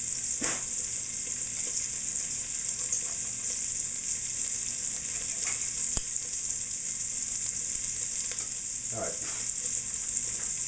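Bacon ends sizzling steadily in a pan as their fat renders out, a constant crackling hiss, with a few brief handling sounds over it.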